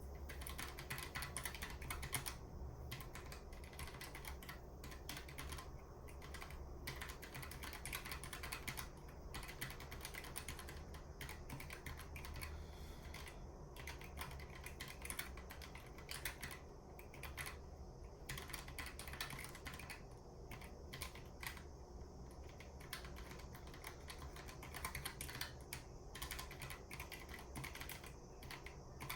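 Typing on a Keychron K1 low-profile mechanical keyboard with red (linear) switches: a fast, continuous patter of key clicks with brief pauses now and then.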